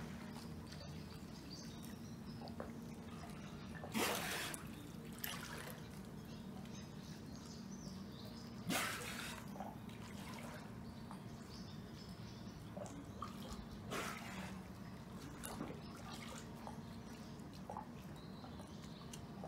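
Water lapping and dripping as a bottlenose dolphin swims alongside, broken by a few short, louder splashes as it breaks the surface. A steady low hum runs underneath.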